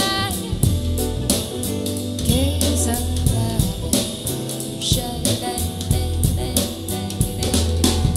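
Recorded music played back through in-ear monitors: a band track with a drum kit keeping a steady beat under a deep bass line, with melodic lines and some singing.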